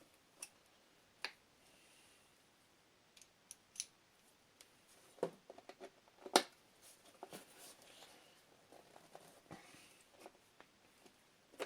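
Scattered clicks, clinks and small knocks of tools and metal parts being handled, the sharpest knock about six seconds in and a quick run of small clicks just after it.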